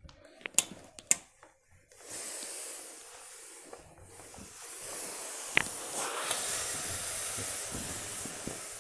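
Gravity-feed tailoring steam iron jetting steam into wool suiting fabric: a steady hiss in two spells, the second one longer, with two sharp clicks about a second in and a knock partway through.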